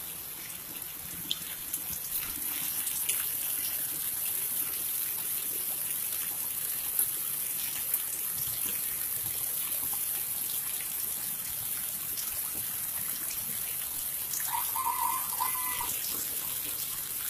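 Heavy rain pouring steadily onto a flooded street, a continuous hiss with scattered drips and splashes. A short pitched call sounds over the rain about fifteen seconds in.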